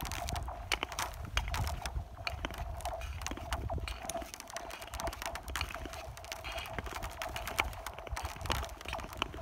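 Thin, clear lake ice under ice skates: blades scraping and gliding, with many sharp clicks and pings from the ice and a faint ringing tone carried through the thin sheet.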